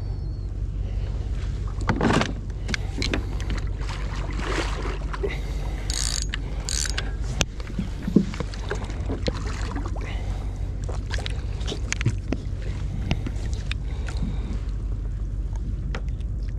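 Water splashing and gear knocking against a kayak as a hooked red drum is brought alongside and lip-gripped, with a sharp knock about eight seconds in, over a steady low hum.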